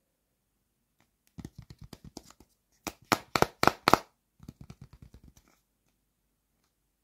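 Fingers rubbing and scratching across a small plastic toy plate in quick strokes. There are three runs: a light run about a second and a half in, a louder run of about five strokes around the middle, then another light run.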